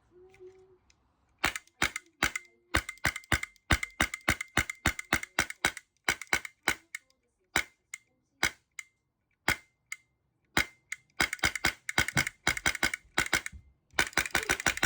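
Airsoft gun firing: sharp shots, some single and some in quick strings of several.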